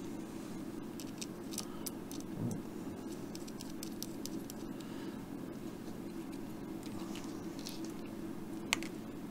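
Solder fume extractor fan running with a steady hum. Over it come light, scattered clicks and taps of small parts being handled, the circuit board, its heatsink, brass standoffs and screws, with one sharper click near the end.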